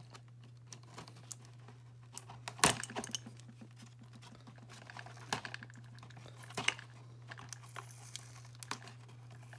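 Cardboard packaging being handled and cut: scattered small clicks, scrapes and rustles of cardboard and a cutting tool, the sharpest snap about a third of the way in, over a steady low hum.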